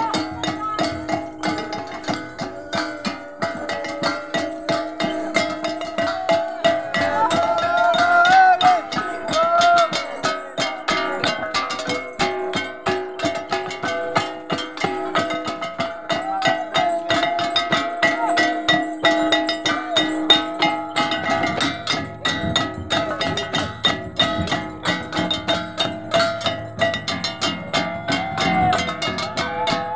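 Timorese dance music of small hand drums and flat metal gongs: the drums beat a fast, even rhythm while the gongs ring steadily over it. Voices sing over the percussion for a few seconds about a quarter of the way in and again near the end.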